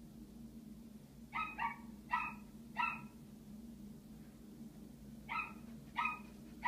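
Toy poodle barking in short, high yaps, four in a quick run and then three more a few seconds later, over a steady low hum. It is the dog's old separation-anxiety barking when left alone.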